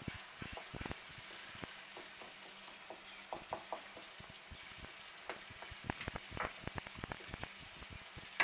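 Softened tomato masala sizzling gently in oil in a wok, while a spatula scrapes and taps against the pan in scattered strokes.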